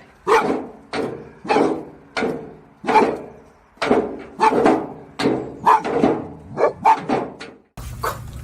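A dog barking over and over, about two barks a second, each bark trailing off with some echo; the barking stops near the end.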